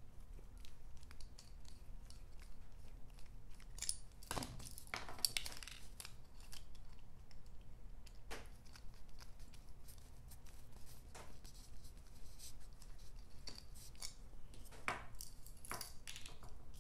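Faint small clicks and short scrapes of a precision screwdriver working tiny screws out of a drone gimbal's metal bracket, with plastic parts handled. A few louder scrapes come about four seconds in and near the end, as the parts are pulled apart.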